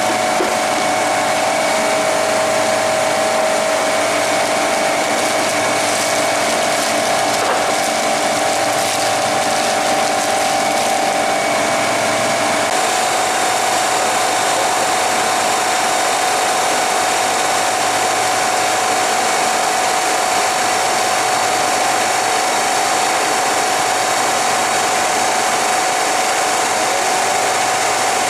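Steady, loud running machinery: a continuous mechanical drone with steady tones over it, shifting slightly in pitch about halfway through.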